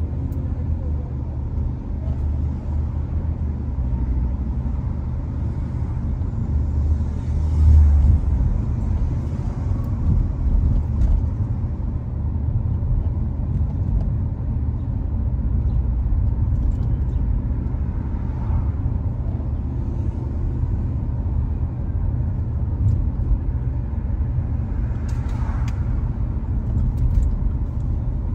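Car interior road noise while driving: a steady low rumble of engine and tyres heard through the closed cabin, with a louder low thump about a quarter of the way in.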